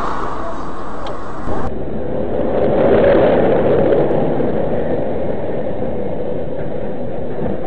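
Steady road and engine noise of a moving car, heard inside the cabin, swelling a little around three seconds in, with a brief knock about one and a half seconds in.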